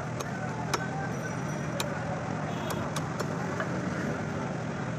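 Steady street traffic drone, with a few sharp clicks and knocks scattered through it.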